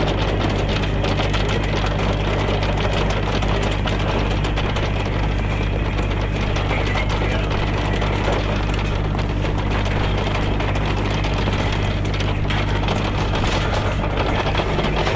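Engine of a backhoe running steadily at constant speed, a steady low hum with light rattling.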